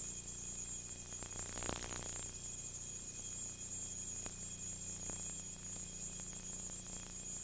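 Steady tape hiss and hum from a second-generation VHS dub, with a thin high whine held above it. A few faint clicks, and a brief crackle about a second and a half in.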